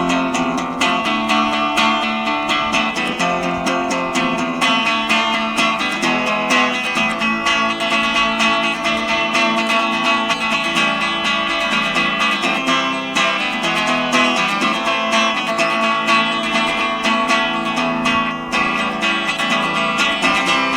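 Acoustic guitar strummed in a steady rhythm, playing the instrumental break between sung verses of a bard song.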